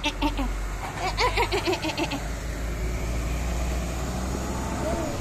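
A toddler giggling and babbling in short bursts during the first two seconds, then a vehicle engine running steadily in the background, a low rumble that grows slightly louder.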